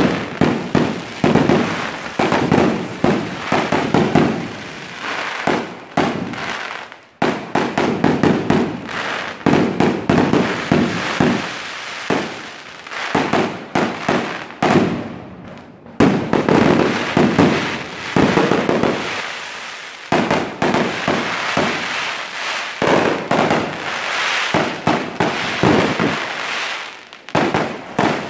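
Aerial fireworks going off in a rapid, near-continuous barrage of bangs and crackling bursts, with short lulls about seven and sixteen seconds in.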